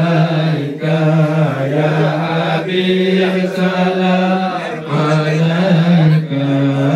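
Voices chanting a slow melody in long held notes, phrase after phrase with short breaks between them.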